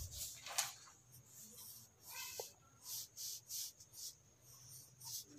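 Faint pencil strokes scratching on paper: a run of short scrapes with small gaps between them.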